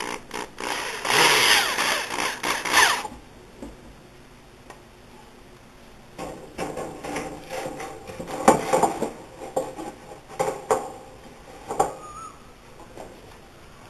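Woodworking noise at the bench: a rasping burst of a tool for about two seconds, then a scattered run of knocks and clatters of wood and tools.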